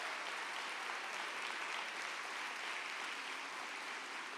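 Audience applauding steadily, the clapping slowly fading near the end.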